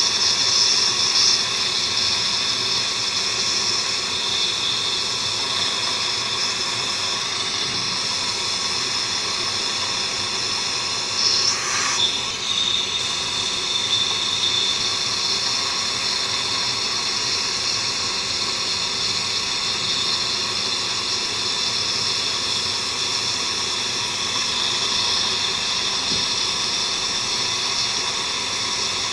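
Steady hiss with a faint high whine from dental equipment working at the lip during laser removal of a fibroma, with a brief louder disturbance about twelve seconds in.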